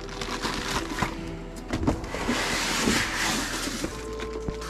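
Cardboard box and plastic-wrapped packaging being handled as a room heater in white foam end caps is lifted out: scattered knocks and scraping, with a stretch of plastic rustling about two seconds in. Background music plays throughout.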